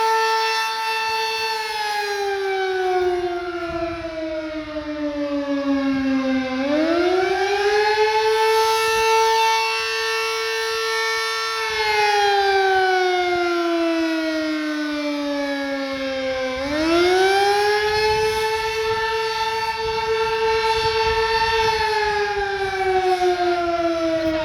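Sterling Model M electromechanical warning siren sounding its test in a wail: the pitch climbs quickly, holds, then slides slowly down, repeating about every ten seconds.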